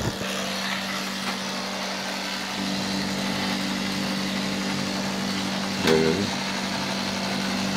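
Electric hair clippers running with a steady hum as they shave a cat's long fur. About six seconds in, a short voice briefly cuts in over the hum.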